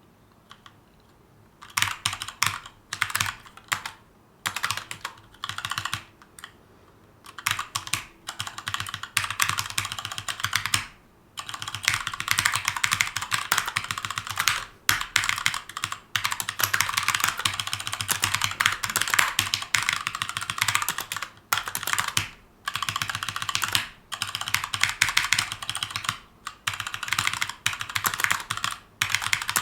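Typing on a Keychron K2 mechanical keyboard with Gateron Brown tactile switches: fast runs of key clacks in bursts, broken by short pauses.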